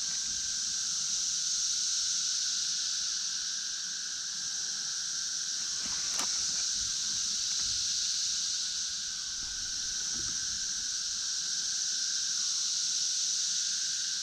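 Chorus of periodical cicadas (the 13- and 17-year broods): a steady, high, shrill droning with a lower steady whirring tone beneath it, the whole mass swelling and easing slowly every few seconds.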